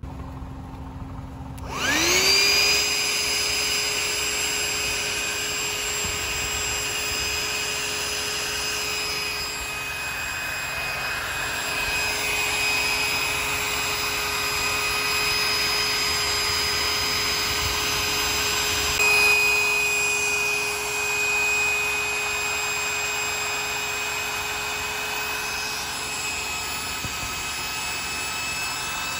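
Small 12-volt electric air pump, run from a car's lighter socket, starts about two seconds in, whining up to speed. It then runs with a steady whirring hum as it inflates an air mattress, its pitch shifting slightly about two-thirds of the way through.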